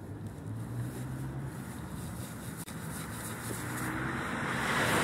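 Road traffic: a steady low engine hum, with the hiss of a car's tyres swelling near the end as it comes close.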